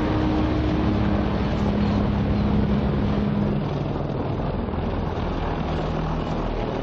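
Mil Mi-28N attack helicopter flying past in a banking pass: a steady, dense noise of its main rotor and twin Klimov TV3-117 turboshaft engines, easing slightly about halfway through.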